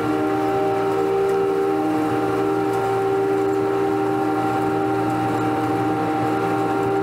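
Riding lawn mower running steadily while mowing: a constant engine hum with a few held tones on top.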